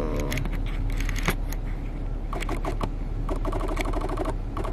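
Steady low rumble of a car's interior, with a few clicks. From about halfway, a pitched, rapidly pulsing sound comes and goes twice.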